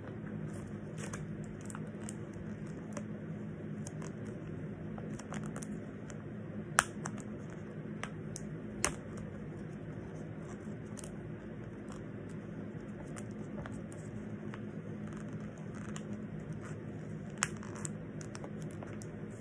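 Packing tape and wrapping on a poster package being picked at, cut and torn, making scattered small scratches and clicks over a steady low hum. A few sharper clicks stand out, about seven and nine seconds in and again near the end.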